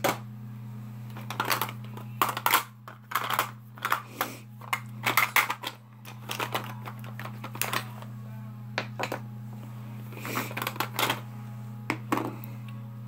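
Makeup products and brushes being rummaged through and handled: irregular clicks, clacks and rustles of small plastic cases, over a steady low hum.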